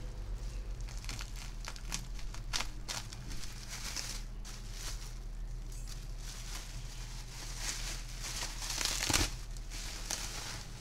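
Bubble wrap crinkling and rustling in the hands as a packed computer motherboard is unwrapped. The crackles come irregularly and are loudest near the end, over a steady low hum.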